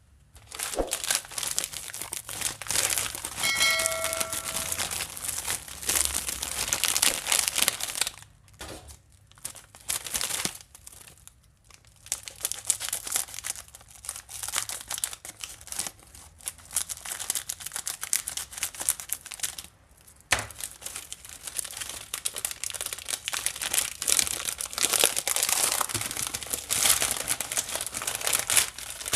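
Chocolate wafer packaging being unwrapped by hand: close-up crinkling and tearing of the wrapper in dense crackly bursts, with a few short pauses.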